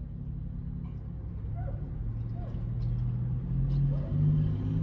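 A vehicle engine idling: a steady low hum that steps up slightly in pitch and grows louder over the last two seconds.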